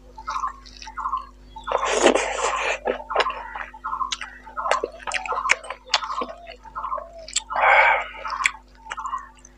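Close-up wet chewing and lip-smacking of a mouthful of rice and fish curry in a steady rhythm of about two and a half smacks a second, with sharp mouth clicks. Two longer, louder wet noisy bursts come about two seconds in and near the end.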